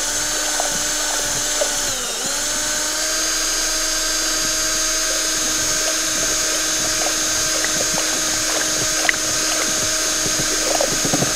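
Cordless drill spinning a paddle mixer in a bucket of water-based paint, running steadily at speed to mix in black tint. Its motor pitch dips briefly about two seconds in, then picks back up.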